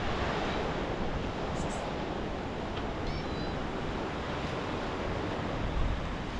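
Steady rush of sea waves and wind, with a faint short high chirp about three seconds in.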